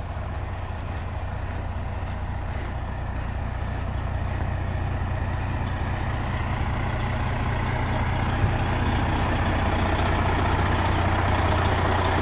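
Diesel engines of parked fire trucks running at idle, a steady low hum that grows steadily louder toward the end; a single short click about eight seconds in.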